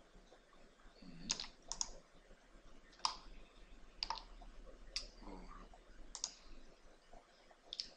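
Scattered sharp clicks of a computer mouse and keyboard, about seven of them at uneven spacing, some in quick pairs.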